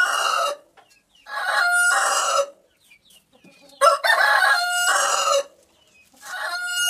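Rooster crowing again and again, a crow of just over a second starting about every two and a half seconds, with short quiet gaps between them.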